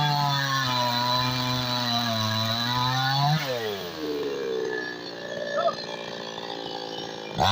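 New West 628 two-stroke chainsaw running at high revs, then the throttle is released about three seconds in and the engine drops to idle; it revs up again sharply at the very end.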